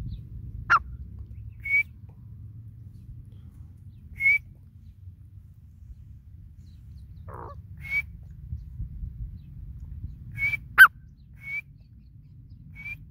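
Grey francolin giving short, high chirping calls every few seconds, with two louder calls that drop quickly in pitch, the louder of them near the end.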